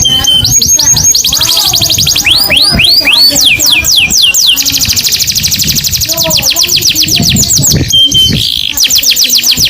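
Domestic canary singing fast trills: runs of quickly repeated notes that each sweep downward in pitch, with the speed of repetition changing from one run to the next. A short steady whistle comes shortly before the end.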